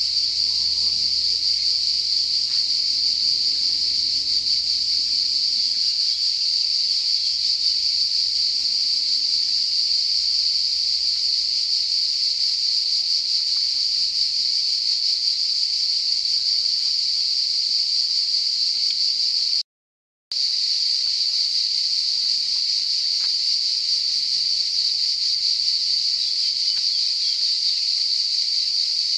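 Loud, steady chorus of cicadas. It drops out to silence for a moment about two-thirds of the way through, then carries on unchanged.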